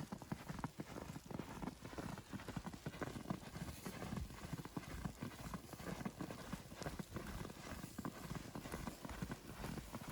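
Footsteps crunching through fresh powdery snow, a steady run of crisp steps at walking pace.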